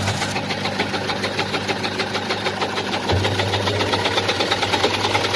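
Washing machine running with a loud, fast, steady rattling knock, the noise it makes when it spins. A low hum cuts out at the start and comes back about three seconds in.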